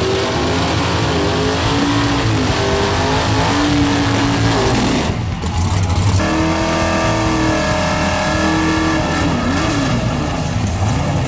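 Super stock drag cars' V8 engines revving up and down hard through burnouts, rear tyres spinning in smoke. The sound breaks about five seconds in and goes on with a second car.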